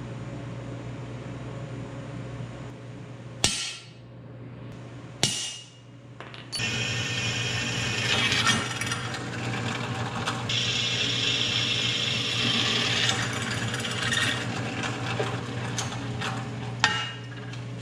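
Drill press boring holes through a steel bar: the motor runs with a steady hum and the bit cutting through the metal makes a sustained hiss from about a third of the way in. Two sharp knocks come before the drilling starts, and another near the end.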